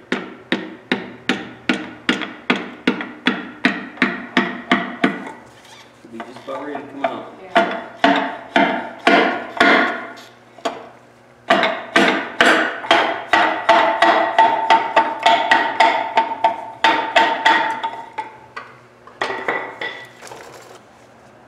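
Rapid, regular hammer blows, about three a second, on a bar driven up into a cylinder of a Detroit Diesel 3-53 two-stroke block to knock out a stuck piston, in runs with short pauses. Each blow leaves the iron block ringing.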